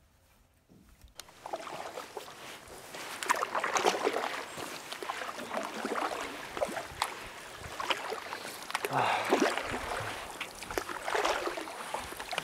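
Canoe paddles dipping and pulling through calm lake water, with splashes and drips, the strokes swelling and fading every couple of seconds. Starts about a second in, after near silence.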